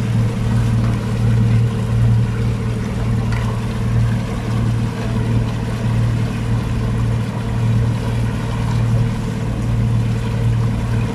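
Outboard motor of an inflatable dinghy running at a steady, slow cruising speed: an even, constant drone.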